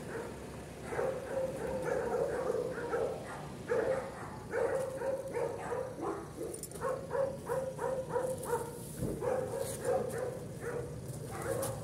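A dog barking over and over in fast, regular runs, several barks a second, with a few short pauses.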